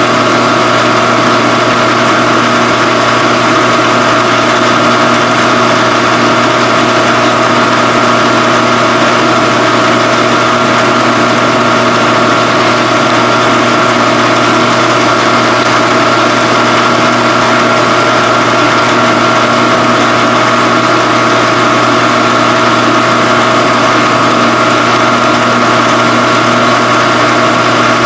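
Phase-O-Matic CNC phase converter running with a steady electrical hum that holds its pitch and level throughout.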